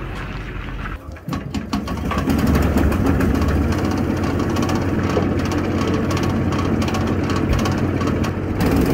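Engine of a 15 hp wood chipper running steadily. It is briefly cut off about a second in, then runs on louder from about two seconds in.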